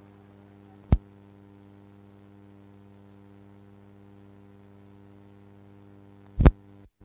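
Low steady electrical mains hum from the sound system. It is broken by a sharp pop about a second in and a louder pop near the end, as cables at the wall power strip are handled, and the pop is followed by a brief dropout.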